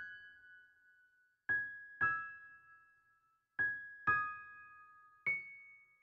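Slow background music on a piano-like keyboard. Single high notes are struck one at a time, five in all, each left to ring and fade.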